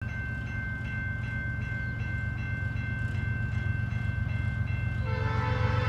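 Railroad grade-crossing bell ringing steadily, about two and a half strikes a second, over a low rumble. About five seconds in, the horn of an approaching CN freight train starts to sound, a chord of several held tones.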